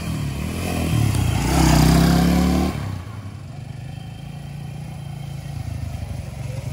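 Small engine of a hand-built miniature Honda CBR 600 RR replica revving as the bike is ridden off. It is loudest about two seconds in, then drops sharply to a lower, steady running about three seconds in.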